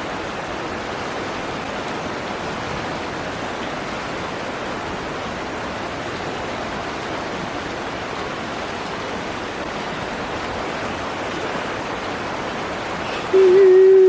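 A steady rushing noise, like running water or hiss. About a second before the end, a loud held tone with overtones cuts in abruptly and stays at one pitch.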